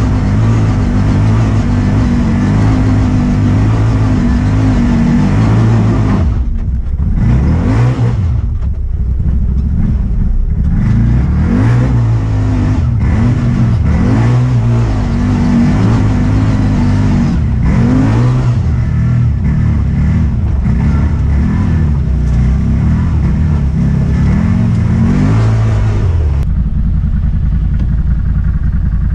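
Motorcycle engine riding off-road, first holding a steady note, then revving up and down again and again as the throttle is worked over rough ground. About 26 seconds in, the sound changes abruptly to a steadier, duller engine note.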